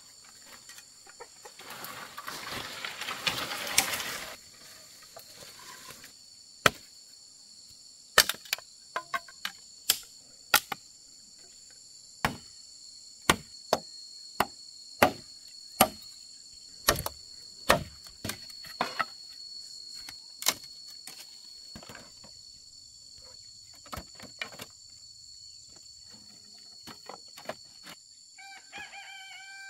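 Rustling, then a run of sharp knocks or chops roughly a second apart, over a steady shrill of insects. Near the end a chicken gives a short call.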